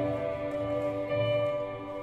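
Show music for a winter guard routine, played over the arena sound system: sustained held chords over a low pulsing bass, slowly growing quieter.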